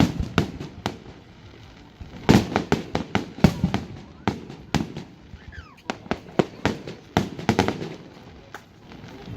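Aerial fireworks shells bursting in an irregular, rapid series of sharp bangs, bunched into thick volleys about two seconds in and again about seven seconds in, with a low rumble between the bangs.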